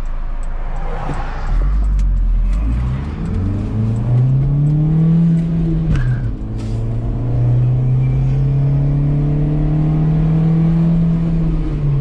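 Car engine accelerating, with its pitch climbing, then dropping sharply at a gear change about six seconds in, before running on at a steady pitch.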